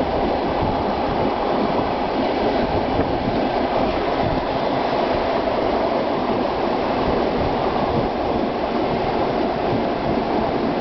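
Train running steadily along the rails: an even rumble of wheels and carriage noise with no clear beat of rail joints.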